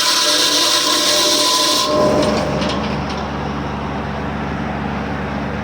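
Homemade sawmill blade cutting through a log: a steady hiss with a high whine, which stops abruptly about two seconds in as the cut ends and the slab comes free, leaving the mill running with a lower, steady hum.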